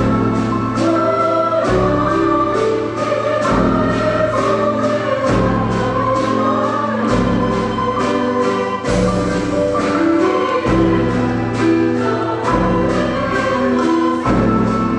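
Elementary school choir singing with instrumental accompaniment over a steady beat, the bass note changing about every two seconds.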